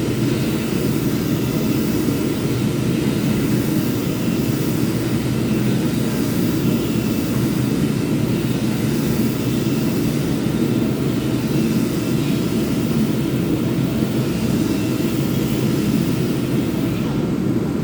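Power sander running steadily.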